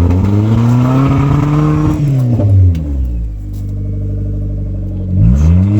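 Mitsubishi 4G93 GDI 1.8-litre four-cylinder engine being blipped with the throttle: the revs rise and fall once, settle to a steady idle, then rise again near the end.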